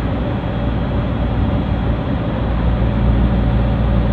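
Steady low rumble of a moving vehicle on the road, engine and road noise together, with no change in pace.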